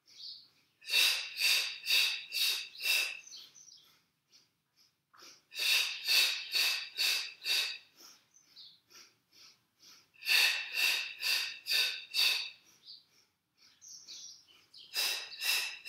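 A woman's rhythmic percussive breathing through the Pilates hundred: groups of about five or six short, sharp breaths, about two a second, with short pauses between the groups, counted in sets of five.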